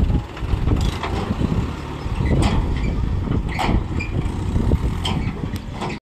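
Mahindra diesel tractor engine running steadily while it hauls a tipper trolley, with several sharp clanks and rattles from the trolley.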